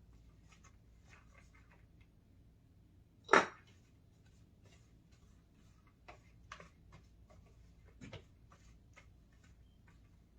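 Quiet kitchen handling sounds: scattered light clicks and taps, with one sharp knock about three and a half seconds in and a few more near the middle and toward the end.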